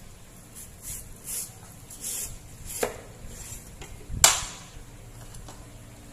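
Large kitchen knife slicing through watermelon rind and flesh in several short rasping strokes, with a sharp click in the middle. A louder sharp knock follows about four seconds in, as the blade or a piece hits the wooden chopping board, then a couple of light clicks.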